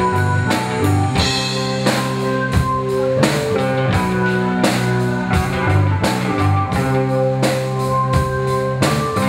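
Rock band playing live: distorted-free electric guitars and bass holding sustained notes over a drum kit keeping a steady beat.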